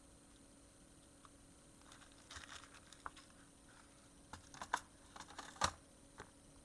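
Light clicks, taps and rustling of small electronic parts and hand tools being handled at a workbench, starting about two seconds in, with one sharper click a little under six seconds in.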